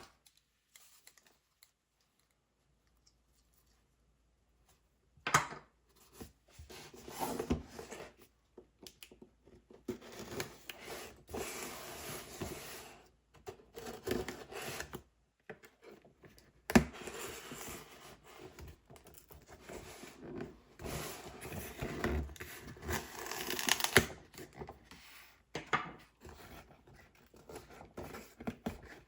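Cardboard and plastic packaging handled, torn and crinkled by hand, with sharp knocks about five seconds in and again near the middle. Near silence before the first knock.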